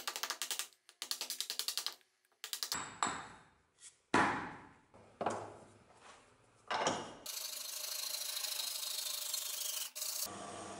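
A hammer tapping rapidly on wood, about eight blows a second, then several single sharp knocks. A hand saw then rasps steadily through a wooden blank held in a vise, and near the end a drill press motor hums.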